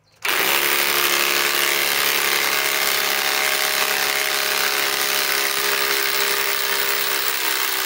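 Ridgid subcompact cordless impact wrench on speed 3 hammering steadily as it backs a 4-inch lag screw out of a log. It starts about a quarter second in and keeps an even rapid rattle over the motor's whine.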